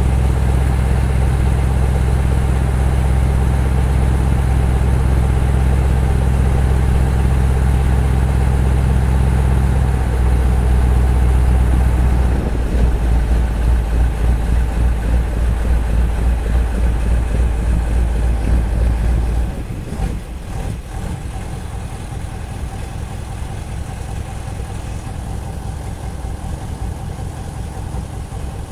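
Engine of the Strizh-7 passenger boat running steadily. About 12 seconds in its note turns to a pulsing beat, and about 19 seconds in it is throttled back and runs more quietly as the boat slows to come in to the landing.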